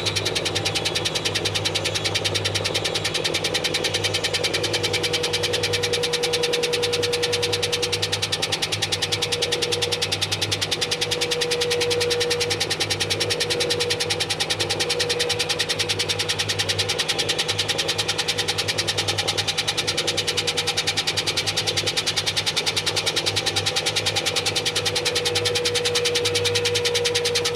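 Washing machine running with balloons in the drum: a steady motor hum with a fast, even pulsing and a wavering mid-pitched tone that comes and goes.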